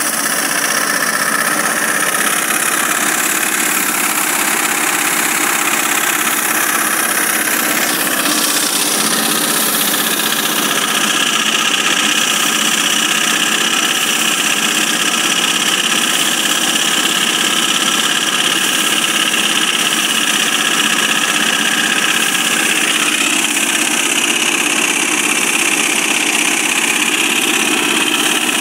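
A small engine running steadily at an even speed, without a break.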